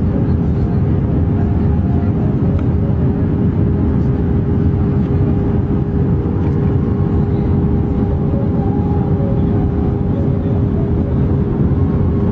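Steady Airbus A320 cabin noise at a window seat in flight with the flaps extended: a loud, even rumble of engine and airflow with a constant hum running through it.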